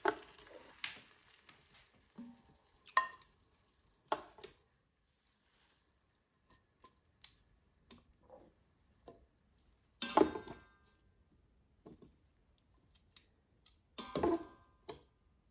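Metal tongs clinking and scraping against a stainless steel Instant Pot inner pot as steamed asparagus is lifted out, in scattered light clicks with two louder, briefly ringing clatters about ten and fourteen seconds in.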